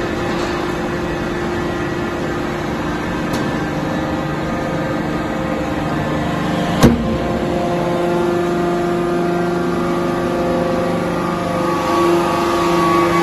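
A sink-making machine running with a steady mechanical hum after being started, with one sharp clank about seven seconds in; the hum grows a little stronger in the second half.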